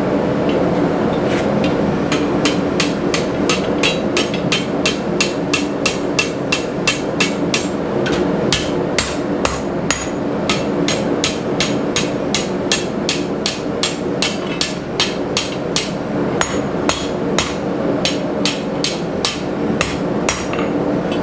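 Hand hammer forging hot rebar on a steel anvil, shaping a scroll: a steady run of sharp metallic blows, about three a second, over a steady background hum.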